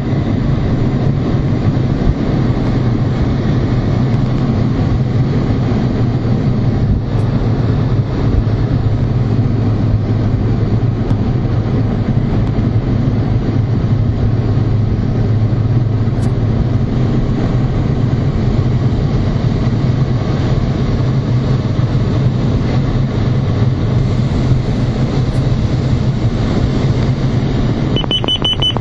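Steady cockpit noise of a MiG-29 in flight: its twin turbofan engines and the rushing airflow make a loud, constant low drone with a hiss above it.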